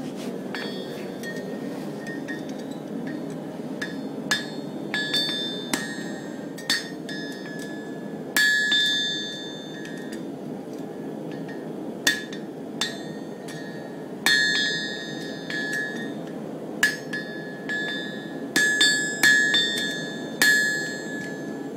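Farrier's hammer striking a hot horseshoe on an anvil in irregular runs of blows, the louder strikes leaving a bright metallic ring. A steady low rush runs underneath.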